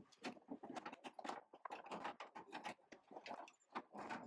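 Faint, rapid, irregular clicking, rattling and scraping of metal and plastic door parts being handled and pulled free during the strip-down of a car door.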